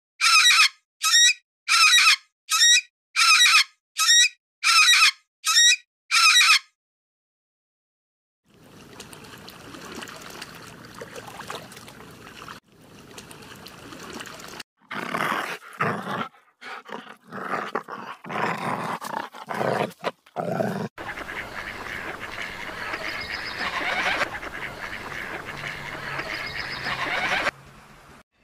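Loud animal calls, about ten in an even series over six seconds. After a short silence comes a longer stretch of mixed animal and outdoor noise.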